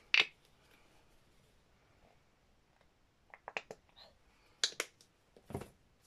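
A sharp click just after the start as the cap of a paint tube is snapped open, then scattered light clicks and taps from about three seconds in as the tube and tools are handled on the table.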